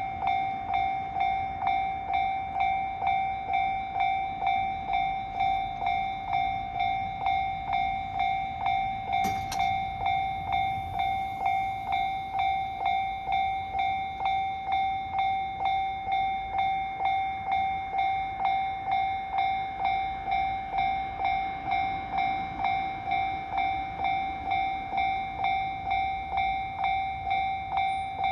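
Japanese level-crossing warning alarm ringing steadily: a clanging electronic bell tone struck about twice a second, each strike fading before the next. There is a single brief click about nine seconds in.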